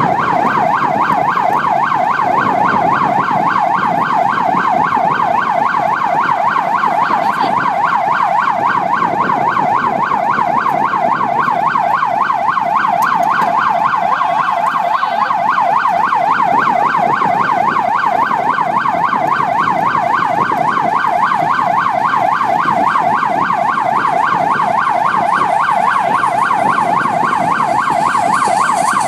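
Vehicle siren in fast yelp mode, warbling rapidly up and down without a break, over low road and engine noise.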